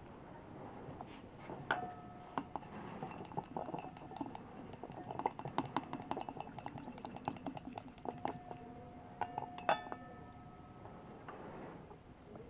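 A utensil clicking rapidly against a ceramic bowl that rings after the harder strikes, as egg yolks are beaten. The clicking is densest in the middle and eases off near the end.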